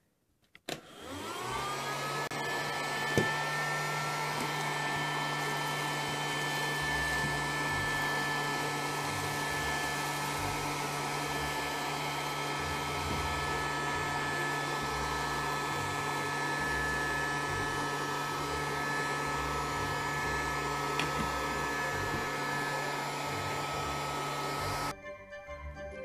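Casdon toy Dyson DC22 cylinder vacuum cleaner's battery motor switching on with a rising whine, then running steadily with a high whine and hum. It switches off about a second before the end.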